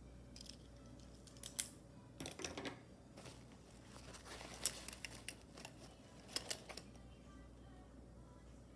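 Plastic pens being handled and set down among other pens on a table: a string of light clicks and short rattles, loudest as a sharp click about a second and a half in and a few more near the middle and after six seconds.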